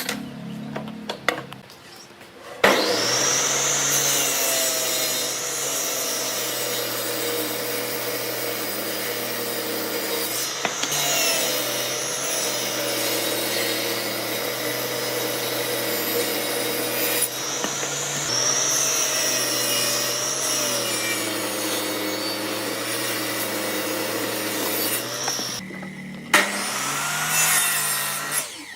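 A power tool cutting or sanding wood. It starts about two and a half seconds in, runs steadily under load with a motor hum and a wavering whine, and stops near the end, with a few short knocks before and after.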